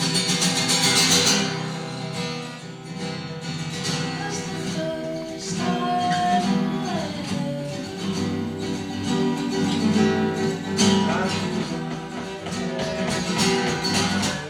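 Folk music on acoustic guitar, picked and strummed, with a voice holding a few sung notes in the middle.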